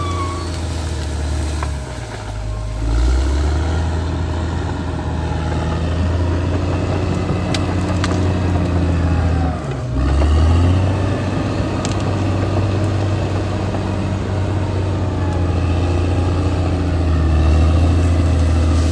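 Caterpillar D6R XL bulldozer's diesel engine running with a steady low drone that dips and picks back up about two seconds in and again about ten seconds in, with a few sharp knocks in between.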